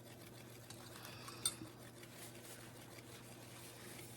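Quiet room tone with a steady low hum and one light click about a second and a half in.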